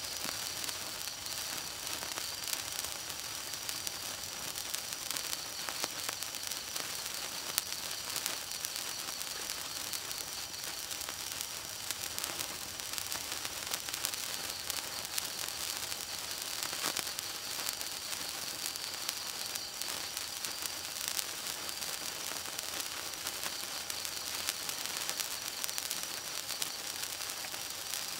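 A 36-inch gold wire sparkler burning: a steady fizzing hiss dotted with many small crackles as it throws sparks.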